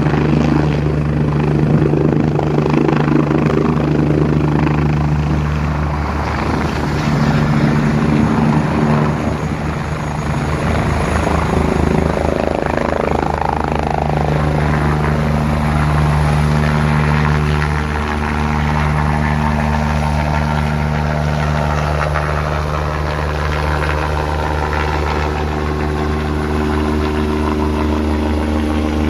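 Medical helicopter's turbine engine and main rotor running loud and steady during lift-off, with the rotor blades beating more plainly around the middle.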